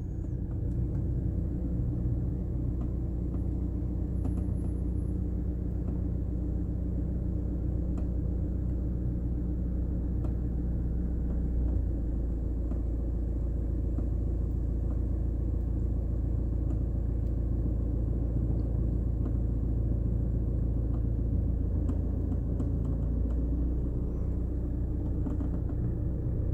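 A car driving, heard from inside the cabin: a steady low rumble of engine and tyres on the road. The engine hum shifts slightly about halfway through.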